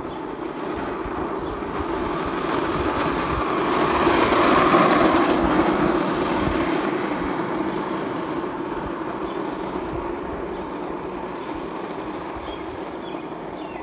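Hard plastic wheels of a kids' ride-on scooter toy rolling fast down an asphalt street with a rattling rumble. It grows louder as it approaches, is loudest as it passes about five seconds in, then slowly fades as it rolls away.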